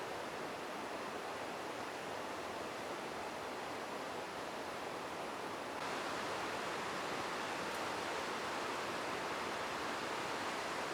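River water running: a steady rushing hiss that gets a little louder and brighter about six seconds in.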